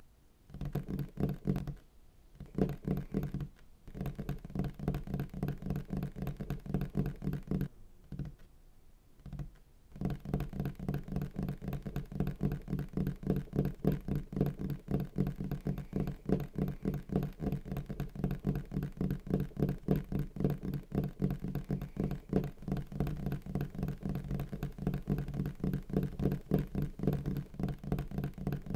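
A low droning hum with a fast, stuttering pulse running through it. It cuts out briefly a few times in the first ten seconds, then runs on unbroken.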